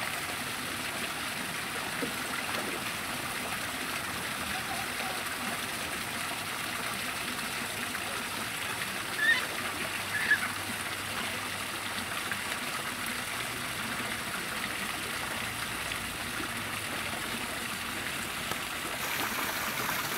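Steady rush of running water. Two short high chirps stand out about nine and ten seconds in.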